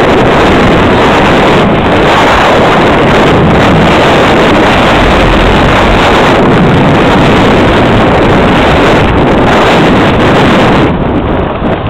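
Wind buffeting the microphone of a camera carried on a moving electric bicycle: a loud, steady rush of noise that eases a little near the end.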